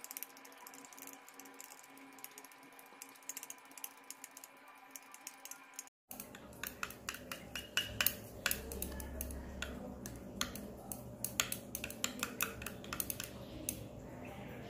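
A metal stirring rod clinking and scraping against the inside of a glass beaker as a thick gel is stirred, in quick, irregular ticks. The sound cuts out briefly about six seconds in.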